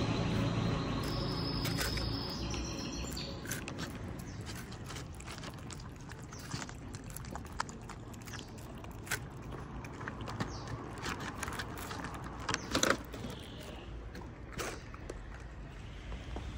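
Stray cats eating close by from plastic food trays: irregular small clicks and crunches of chewing kibble, with a few faint high chirps.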